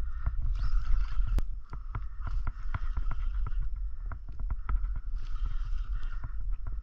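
Spinning reel being cranked, a steady whir that pauses briefly about four seconds in and then resumes, over many small irregular clicks and taps and a low rumble of water and wind against the kayak.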